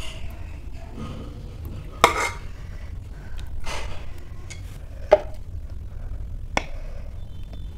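Metal ladle knocking and scraping against a steel pot and plate as soft boiled rice is served out: a few sharp clinks, the loudest about two seconds in.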